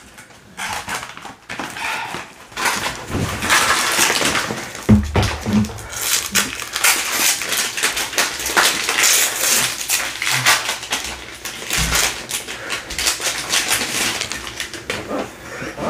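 Plastic ice cream bar wrappers crinkling and rustling close to the microphone as they are torn open and handled, with a couple of dull bumps.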